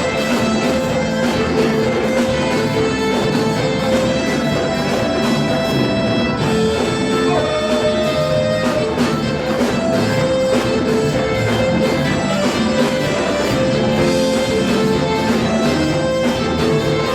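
Instrumental Brazilian sertanejo music with a steady beat and held melody notes.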